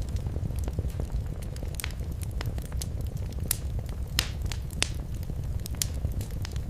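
Wood fire crackling in a fireplace: irregular sharp pops and snaps over a steady low rumble of the flames, with two louder pops past the middle.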